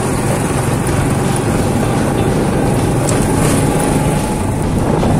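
Honda motor scooter running at riding speed, heard from the rider's seat: a steady engine rumble with an even hiss of wind and road noise over it.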